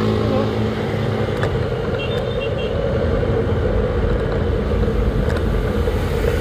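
Steady engine and road noise from a vehicle moving along a city street in traffic.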